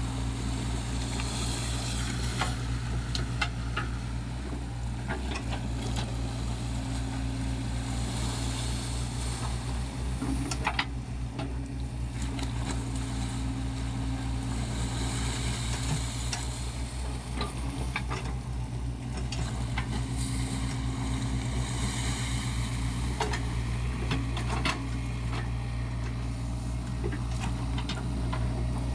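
Sany SY55C mini excavator's diesel engine running steadily as it works, with a scattering of short sharp knocks.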